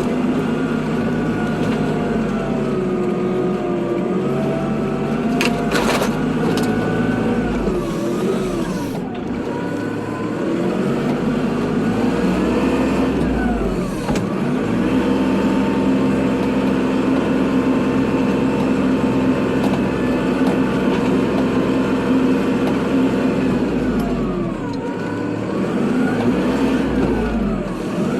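Kubota tractor's diesel engine running, with its pitch dipping and climbing back several times as engine speed falls and recovers. There are a few sharp clicks about six seconds in.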